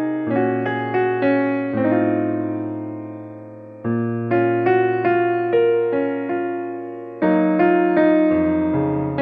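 Background piano music: slow chords and melody notes, each struck and left to fade, with a held bass note under each phrase.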